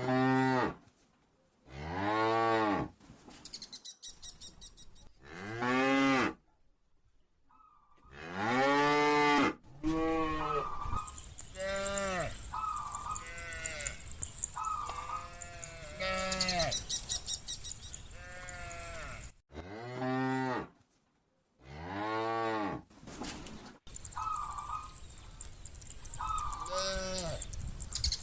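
Cattle mooing over and over, one drawn-out call after another, each rising and then falling in pitch, some deep and some higher. A steady high hiss sits under parts of it.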